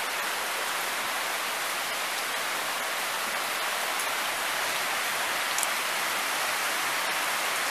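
Steady heavy rain from a hurricane squall falling, an even hiss.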